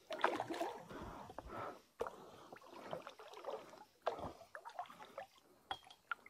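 A hooked traíra (wolf fish) thrashing at the water's surface next to a kayak, making irregular splashes, the biggest just after the start and again about two and four seconds in.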